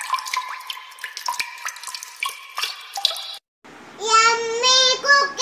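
Logo-reveal sound effect: a rapid run of sparkling, tinkling chimes for about three seconds, then a high-pitched voice-like call lasting about a second and a half near the end.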